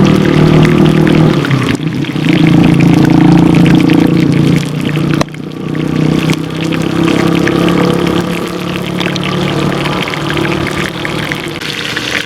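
Hot oil sizzling and crackling as chicken fries, under background music with sustained low chords that change about two and five seconds in.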